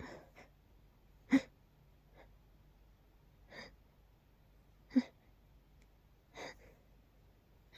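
Short, sharp catches of breath and sniffs from a person whose nose is tickling before a sneeze. Two of the catches are loud and abrupt, with softer breaths in between.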